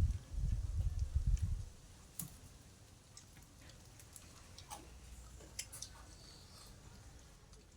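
A person chewing food close to the microphone for about the first second and a half. After that it stops and only faint scattered clicks remain.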